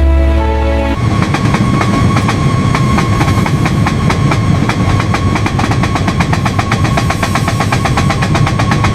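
Music for about a second, then a train running, with a fast, even rhythmic clatter of several clicks a second and a faint steady tone underneath.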